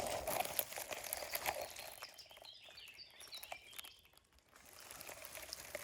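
Rustling and light clicks of brambles being pushed aside, then a short run of faint, high bird chirps about two and a half seconds in.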